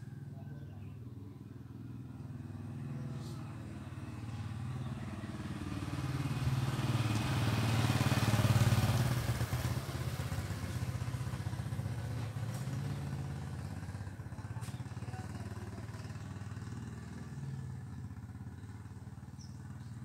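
Motorcycle engine passing by on the road, growing louder to a peak about eight seconds in, then fading back to a lower hum.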